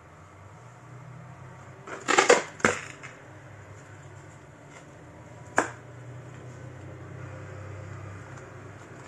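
Objects being handled: a quick cluster of knocks and scrapes about two seconds in, another knock just after, and a single sharp click a few seconds later, over a low steady hum.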